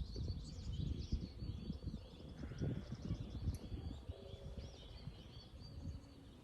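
Several small birds chirping, with many short, quick repeated chirps, over a low rumbling noise that fades away as it goes on.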